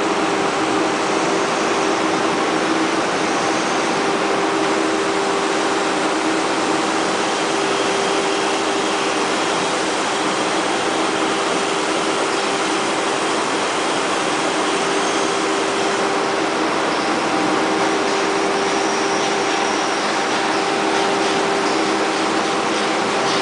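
Excavator working a long-reach clamshell bucket, its engine running steadily with a constant whine.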